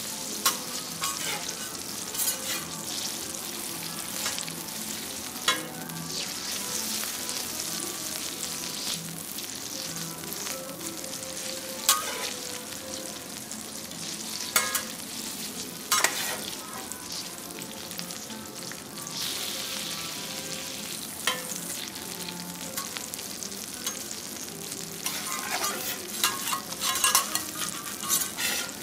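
Food sizzling on a teppanyaki griddle, with sharp clinks of metal spatulas striking the iron plate every few seconds and a quicker run of scraping and clinking near the end.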